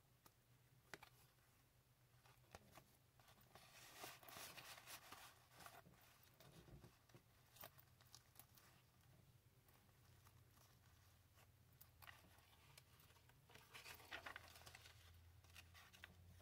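Faint rustling and soft taps of heavy paper pages in a handmade junk journal being handled and turned, with light scrapes around four seconds in and again near the end, and near silence between.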